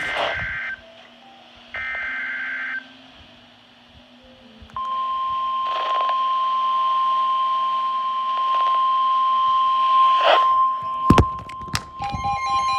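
NOAA Weather Radio Emergency Alert System signal: two bursts of SAME header data, buzzing digital tones about a second each, then about five seconds in the steady 1050 Hz warning alarm tone starts and holds, announcing a severe thunderstorm warning. A few sharp pops of radio static come near the end.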